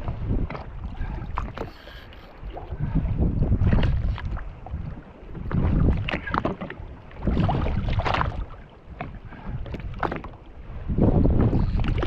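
Wind buffeting the microphone in uneven gusts, with water sloshing against a jet ski's hull.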